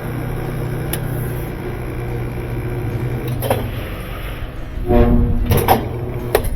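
Repaired Estate washing machine running on test: a steady motor hum that fades about four and a half seconds in. A short buzzing tone and a few sharp clicks follow near the end.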